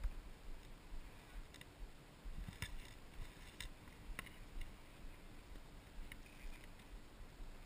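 Faint handling noise from gloved hands around an action camera: a few scattered sharp clicks and knocks, roughly one a second, over a low rumble of wind on the microphone.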